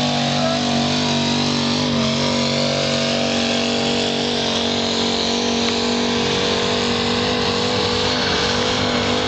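Nissan Titan's VK56 5.6-litre V8 running hard at steady high revs under full load while pulling a weight-transfer sled. The pitch holds nearly level, with a slight waver about two seconds in.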